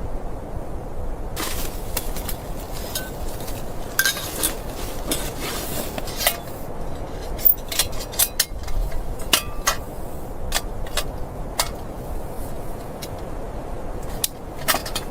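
Irregular sharp clicks and light clinks, some close together and some spread out, over a steady low rushing noise.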